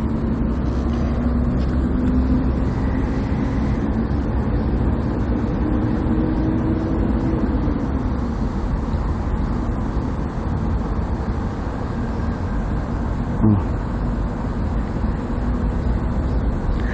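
Steady rushing noise of shallow stream water flowing around wading legs, with a faint hum that drifts up and fades about eight seconds in and one small knock near the end.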